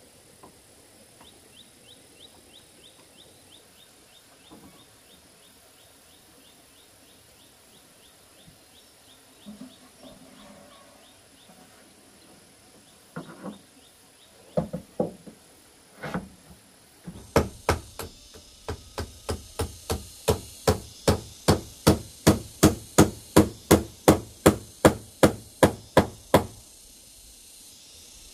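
A hammer driving nails through corrugated roofing sheets into the wooden roof frame. After a few scattered knocks, it settles into a steady run of about three blows a second for roughly ten seconds, growing louder as it goes, then stops. Faint insect chirping runs through the first part.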